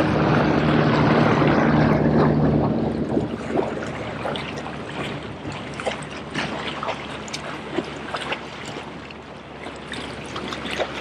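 Seawater lapping and splashing against the rocks of a jetty, with wind noise and a low hum for the first few seconds, then many small splashes and ticks.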